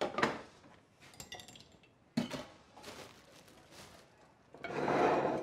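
Plates knocking and clinking as they are moved and set down on a kitchen worktop: a few separate knocks with light clicks between them. Near the end comes a brief hissing noise, under a second long.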